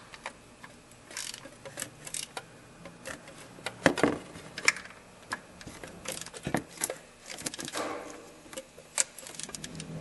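Hand socket ratchet clicking in irregular short runs as the new serpentine belt tensioner's mounting bolts are snugged down, with light metallic clinks of the socket on the bolts.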